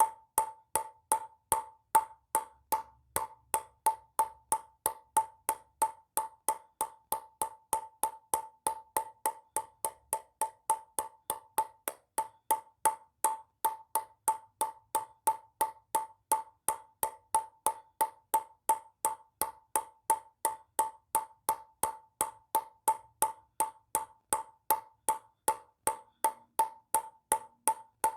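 Ping-pong ball bouncing in a steady, even rhythm of nearly three bounces a second, each a short, sharp click at the same pitch.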